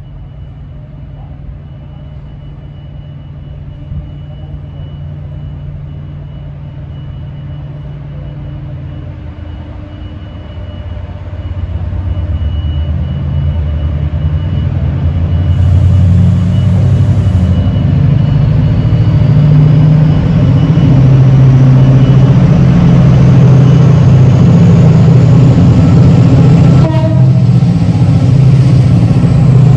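Diesel train approaching, its engine drone building over the first dozen seconds and then staying loud and steady as it comes close.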